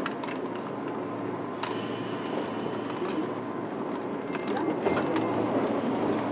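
Interior noise aboard a JR Kyushu 103 series 1500-subseries electric train car: a steady rumble with scattered sharp clicks and rattles.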